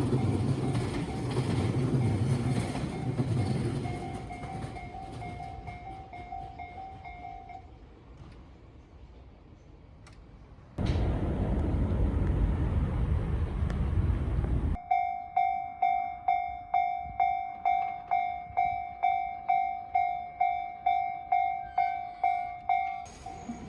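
Japanese level-crossing alarm ringing its electronic clang about twice a second, at first under the fading rumble of a train that has just passed. About eleven seconds in a loud rumble starts and stops abruptly, then the crossing alarm rings clear and steady, signalling the next train approaching.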